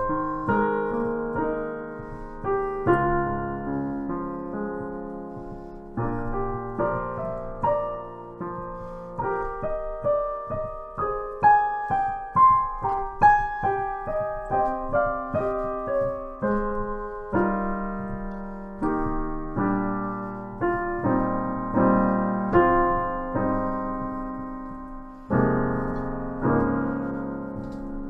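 Solo piano music played on a keyboard: slow chords under a melody, each note struck and then fading away.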